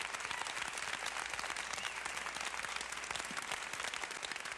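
Audience applauding: a steady, dense clapping that follows the end of a live gospel song.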